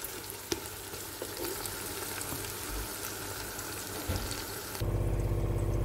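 Sliced red onions sizzling as they fry in hot oil in a wok-style pan, stirred with a spatula, with one sharp click about half a second in. About a second before the end a louder, steady low mechanical hum cuts in suddenly and covers the sizzle.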